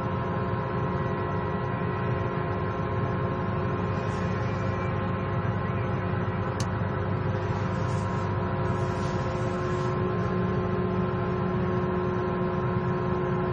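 Case IH 20-series combine running steadily, heard from inside the cab: an even drone with several held tones while the hydraulics lift the header to its maximum height.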